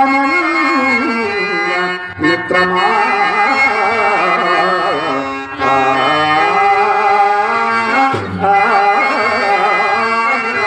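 Harmonium playing a melody with tabla, the instrumental accompaniment of a Telugu padya natakam.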